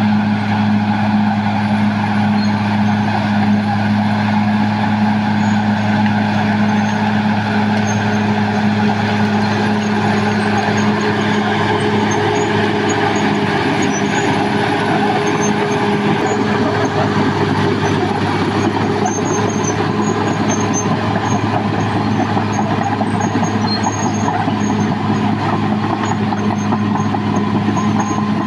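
Caterpillar D6R XL bulldozer's diesel engine running steadily while working, an even deep drone that holds level throughout.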